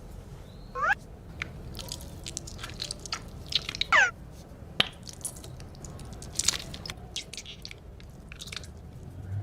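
Scattered light clicks and crunchy handling noises of small objects, with two short squeaky tones falling in pitch, about one second in and again near four seconds.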